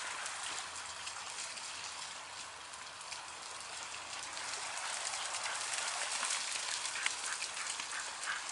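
A team of Siberian huskies running through mud and shallow puddles while pulling a cart: many quick paw footfalls and splashes that grow louder as the team comes closer.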